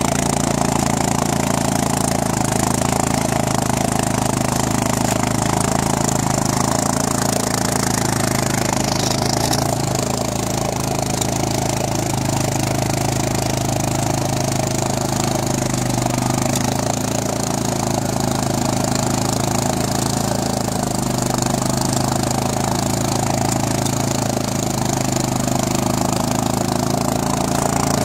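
ATV engine running at a steady speed while the four-wheeler drives through snow on homemade over-the-tire half-tracks, with a continuous hiss of tracks and snow over it.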